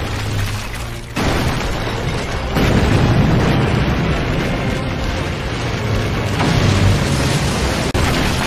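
Dramatic sound effects of a deep, continuous rumble and crumbling stone as a giant wall breaks apart. It grows louder in two sudden steps, about a second in and again between two and three seconds in.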